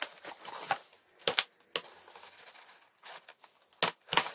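Cardboard box and its packing being handled and pried open: irregular sharp crackles and taps of cardboard and paper, with short pauses between them.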